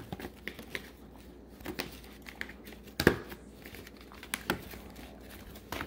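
Soft crinkling and scattered light taps as provolone slices are laid into roasted bell pepper halves on a foil-lined baking sheet, with a sharper tap about three seconds in.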